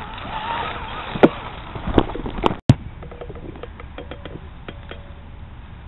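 Several sharp knocks and bumps close to the microphone over the first three seconds, the loudest about a second in. After an abrupt cut comes steady outdoor background noise with faint scattered ticks.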